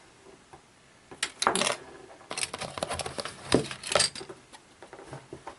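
Plastic model-kit parts and packaging being handled, clicking and rattling against each other. The sound comes in bursts about a second in and again between two and four seconds in, with a few lighter clicks after.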